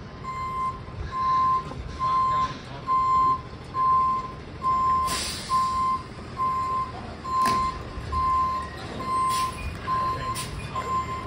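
CrushR dumpster-compactor truck reversing, its backup alarm beeping steadily at about one and a half beeps a second over the diesel engine running. A loud hiss of air comes about five seconds in, with a few shorter sharp bursts near the end.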